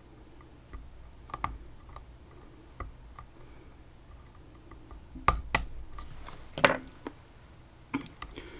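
Irregular small metal clicks and taps from lock-picking tools working in a Chinese-made BiLock imitation lock, with the sharpest clicks a little past halfway.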